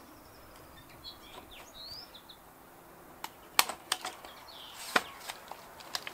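Birds chirping faintly, then a handful of sharp, separate clicks and knocks, about seven over three seconds; the hammer drill is not running.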